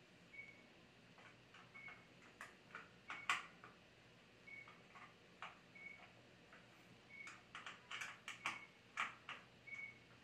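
Scattered light clicks and knocks of hands and a screwdriver on the plastic fittings of an electric instant shower heater, the sharpest about a third of the way in and a cluster near the end. Underneath, a faint short high beep repeats about every second and a half.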